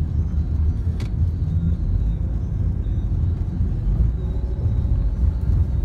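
Road and engine noise heard inside a moving car's cabin: a steady low rumble.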